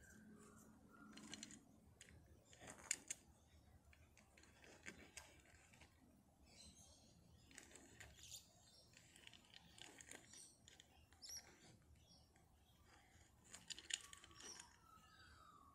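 Near silence, with faint rustling and a few soft clicks as a die-cast Matchbox Fiat 500 toy car is handled and rolled on a fabric cover, the most distinct about three seconds in and near the end.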